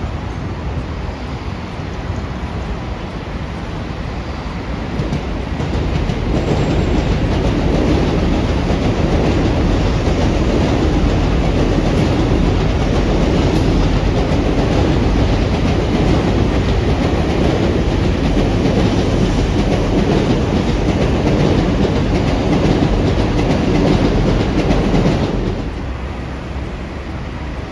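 A train passing close by, its wheels clattering over the rail joints; the noise builds about five seconds in, stays loud for some twenty seconds, then drops off sharply near the end.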